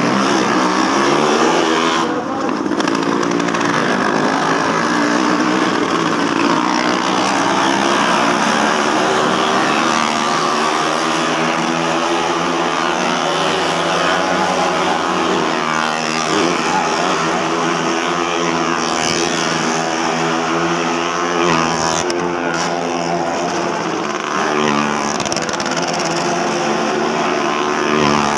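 Motorcycle engines held at high revs as riders circle the wooden wall of a well-of-death pit, the pitch rising and falling over and over as they run around the drum.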